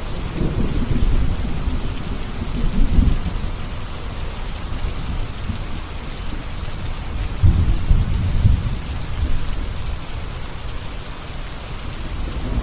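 Thunderstorm: steady heavy rain with rolls of thunder rumbling low, one swelling near the start and another, louder, just past the middle.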